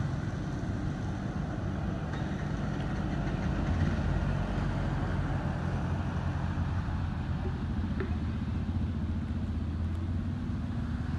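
A motor vehicle's engine idling steadily, a low, even hum.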